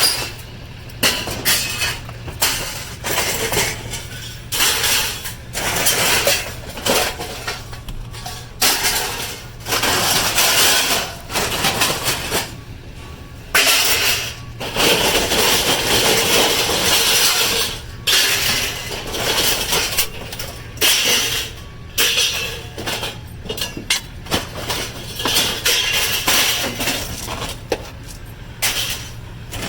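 Scrap metal and junk clanking and clattering in a dumpster, with many irregular knocks and crashes as pieces are moved and tossed.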